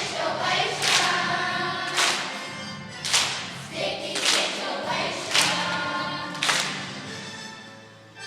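Children's choir singing a song over music, with a sharp clap or beat about once a second. The singing fades out near the end.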